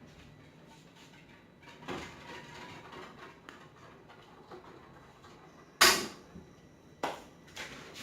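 Kitchen handling noises: a few scattered knocks and clicks. The loudest is a single sharp knock about six seconds in.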